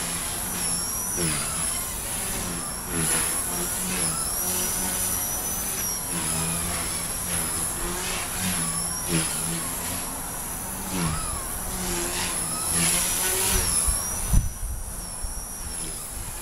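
Blade mCP X BL brushless micro RC helicopter flying: a high motor and rotor whine that rises and falls in pitch as the throttle and pitch change. A sharp thump about fourteen seconds in is the loudest moment, and after it the whine drops away briefly.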